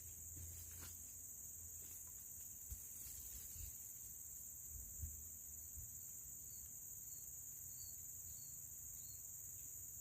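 Steady high-pitched drone of insects such as crickets, with a few faint short chirps in the second half and a couple of faint low thumps about three and five seconds in.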